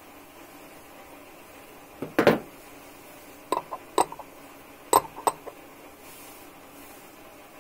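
Steel open-end spanner being handled: a clatter about two seconds in as it is picked up, then a quick run of light metallic clinks with a brief ring.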